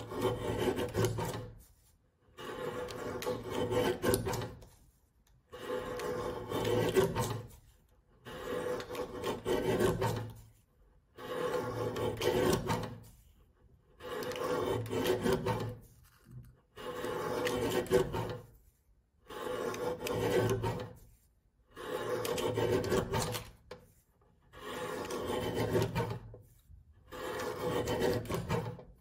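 Lever-arm paper cutter shearing through card stock, the blade arm brought down about a dozen times in a steady rhythm. Each cut is a rasping scrape of about two seconds, with a short pause between cuts.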